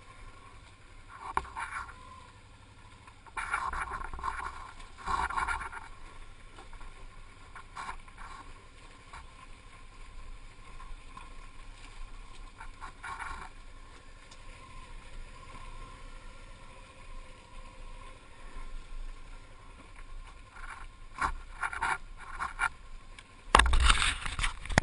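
Motorcycle ride noise: an uneven rumble of engine and wind with bumps and rattles, swelling in bursts and loudest near the end.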